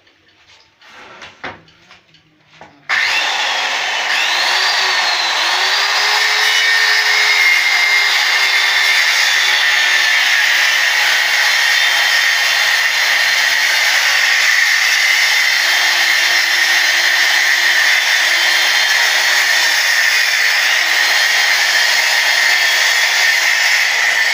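Electric circular saw cutting through a wooden plank: after a few light knocks, the saw starts suddenly about three seconds in and runs steadily with a high whine, its pitch dipping now and then as the blade bites into the wood.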